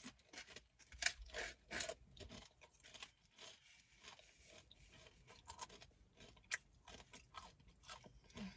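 A person chewing crunchy food close to the microphone: irregular crisp crunches, heaviest about a second in, then lighter scattered chews.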